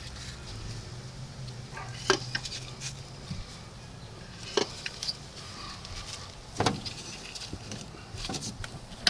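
Ignition coils being pressed into the spark plug wells of a Toyota 4.7-litre V8's valve cover: a few scattered clicks and knocks of plastic against the engine, about four in all, over a faint low hum.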